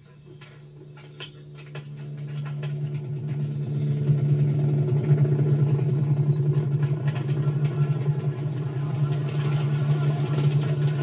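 A steady low droning hum that swells over the first four seconds and then holds at a constant level, with a few faint clicks near the start.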